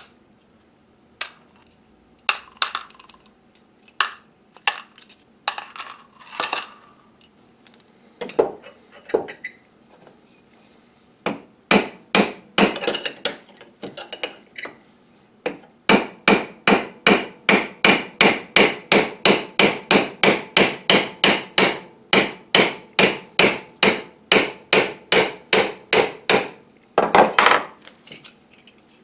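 Claw hammer striking a steel pin punch to drift a tough pin out of the head of an old brace drill. Scattered knocks and taps at first, then a long steady run of hammer blows, about two or three a second, with a light metallic ring, stopping a couple of seconds before the end.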